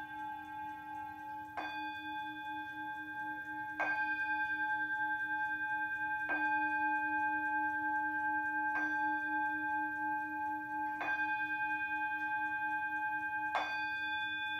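Tibetan singing bowl struck with a mallet six times, about every two and a half seconds, each strike ringing on into the next so the tone is held and builds. These are the strokes that signal the end of the relaxation.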